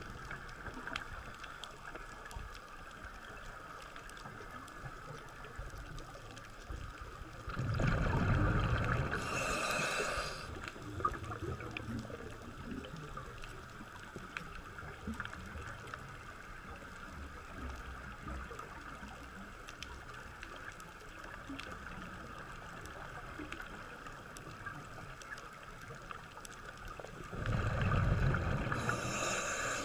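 Underwater sound from a scuba diver's breathing, with a steady hiss in between. Twice, about eight seconds in and again near the end, there is a louder breath cycle: a burst of exhaled bubbles from the regulator, ending in a short hiss.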